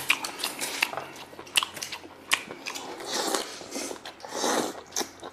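A man chewing and biting a mouthful of roast lamb leg meat close to a clip-on microphone: irregular wet smacks and clicks of mouth and teeth.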